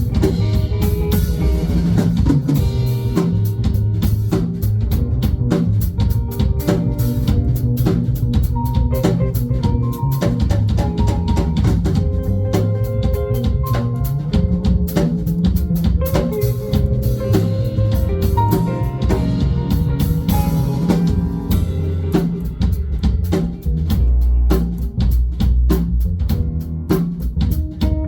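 Live band playing without vocals: a drum kit keeping a steady, busy beat under electric guitar and bass guitar.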